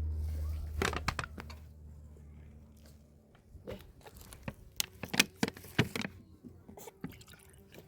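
A series of sharp clicks and knocks, like objects being handled. A low steady hum fades out about three seconds in.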